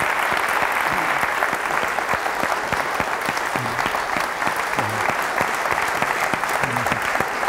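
Audience applauding: many people clapping steadily and densely, with faint voices showing now and then.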